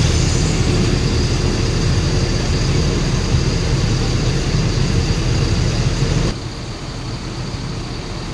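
Heavy diesel vehicle engine running with a steady low rumble. About six seconds in it cuts off abruptly to a quieter engine and traffic background.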